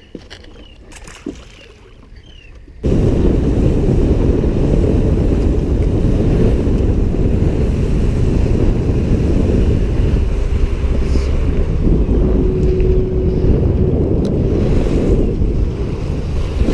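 Wind buffeting the action camera's microphone on a moving boat, with water noise: a loud, steady low rumble that comes in suddenly about three seconds in, after a quieter stretch with a few small clicks.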